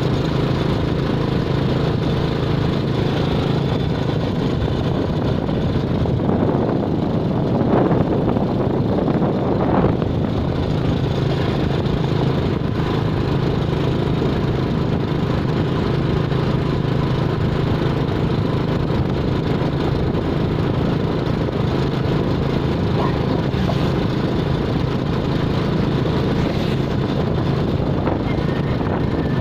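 Steady running noise of a vehicle's engine, a constant hum with road rush, with two brief louder swells about eight and ten seconds in.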